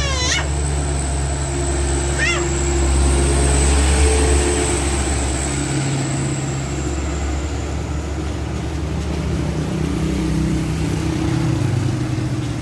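Tour bus diesel engines running close by, swelling about four seconds in and again near the end, with a steady high whine over the first two-thirds. Two short rising squeals, one at the start and one about two seconds in.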